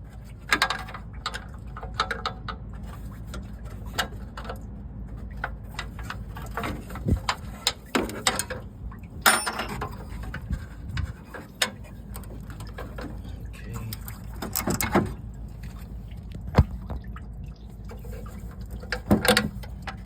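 Hand-tool work on a car radiator's fittings: irregular clicks and knocks of a wrench and metal parts as the radiator lines are unhooked, over a steady low hum.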